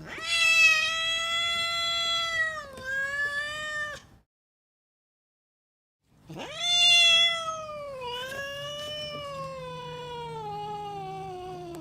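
Domestic cat yowling angrily in two long, drawn-out calls. The first lasts about four seconds, with a dip in pitch shortly before it ends. The second comes after a two-second pause, is loudest at its start, then slides slowly down in pitch.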